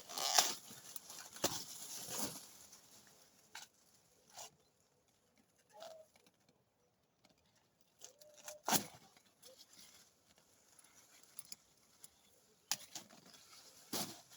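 Intermittent rustling and sharp clicks, with two short animal calls near the middle.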